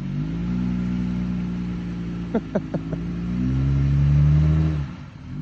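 Jeep Gladiator's 3.6-litre Pentastar V6 running through an AWE Trail Edition exhaust under way. The engine note climbs in pitch just after the start, holds, then climbs again and grows loudest near the end before dropping off. A few brief high chirps come about halfway through.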